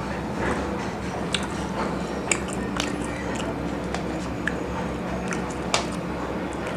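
Close-miked wet chewing of crispy KFC fried food, with a few sharp crunches as the fried coating breaks.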